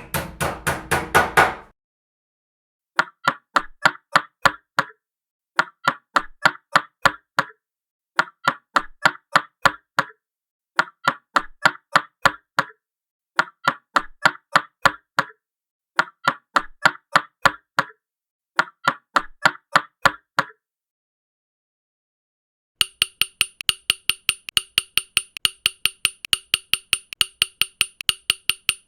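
Hammer blows repeated in quick runs of about seven strikes, each run followed by a short silence, seven runs in all. From about 23 s a faster, even series of ringing knocks begins.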